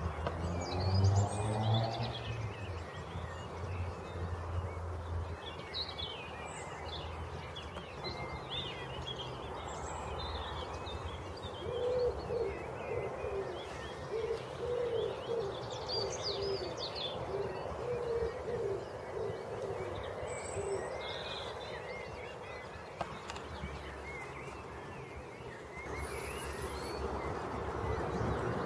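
Birds singing, with a pigeon cooing in repeated phrases for several seconds a little past the middle. A low engine rumble is loudest in the first few seconds.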